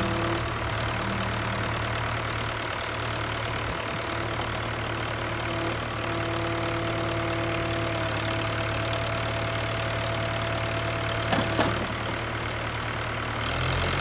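Cat 416 backhoe's diesel engine idling steadily, with two short clicks near the end.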